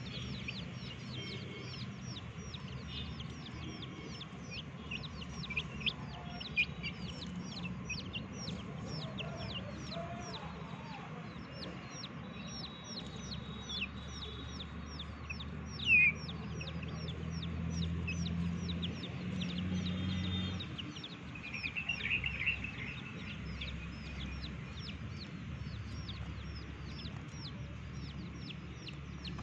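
Young chickens peeping in a steady stream of short, high chirps that fall in pitch, several a second, with one louder call about sixteen seconds in.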